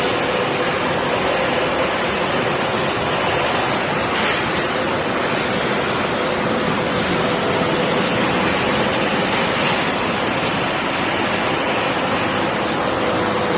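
Scrap recycling machinery running steadily: a continuous dense noise with a faint steady hum under it, with no distinct impacts.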